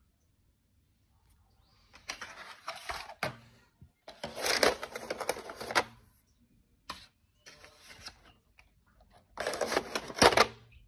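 Wooden colored pencils clicking and clattering against each other in their tray as the set is handled. The sound comes in four bursts of rapid clicks, with the sharpest click near the end.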